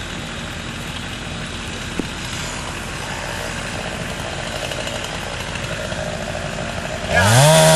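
A steady engine idling in the background, then about seven seconds in a chainsaw is throttled up, its pitch rising quickly to a high, loud full-throttle run.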